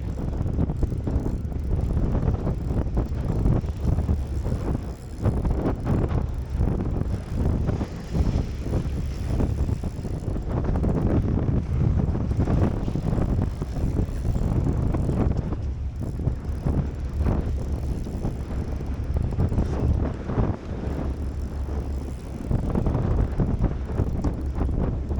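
Strong wind buffeting the microphone, a heavy low rumble that surges and eases with the gusts.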